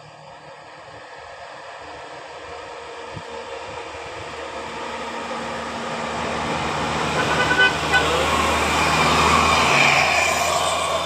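A bus approaching and passing, its engine and road noise growing steadily louder to a peak near the end. A little past two-thirds through, its telolet horn gives two quick toots.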